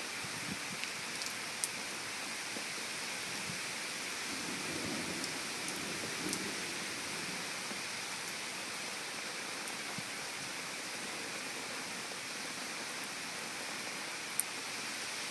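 Steady heavy rain falling on surfaces, with a few sharp drip ticks. A low rumble swells and fades around the middle.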